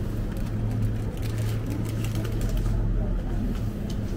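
A steady low hum runs throughout, with faint voices in the background.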